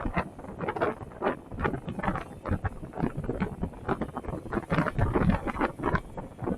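Wind buffeting the microphone in irregular gusts while travelling along a road, with low rumble underneath.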